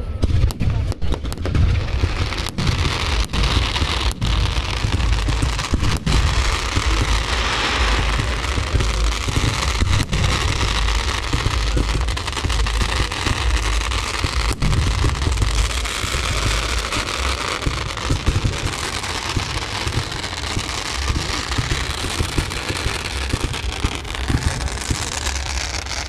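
Fireworks display. Rapid bangs of bursting shells and rockets fill the first few seconds, then settle into a steady crackling hiss of rockets and sparks over a low rumble.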